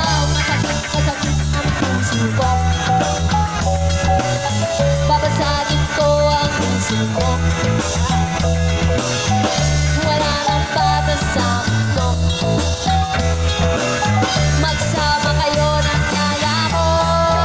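Live band playing an instrumental passage: drum kit, bass and electric guitars keeping a steady beat under a melodic lead line.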